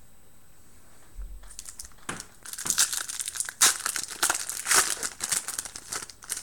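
Foil trading-card pack wrapper being torn open and crinkled by hand: irregular crackling and rustling that starts about a second and a half in, after a quiet moment.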